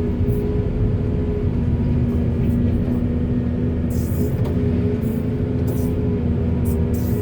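Backhoe's diesel engine running steadily under working load, with a steady whine over the rumble and a few short bursts of hiss, about four seconds in and again near the end.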